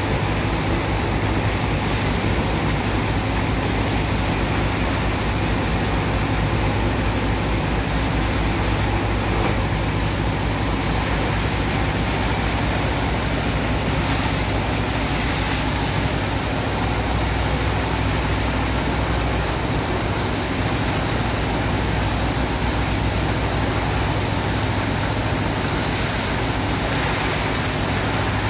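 Water jets from hoses rushing and splashing onto wet sand, over the steady low hum of a pump engine running to feed them.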